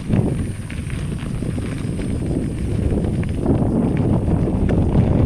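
Rumbling noise of riding a bicycle with a hand-held phone: wind buffeting the microphone along with tyre and road noise, growing louder about three and a half seconds in.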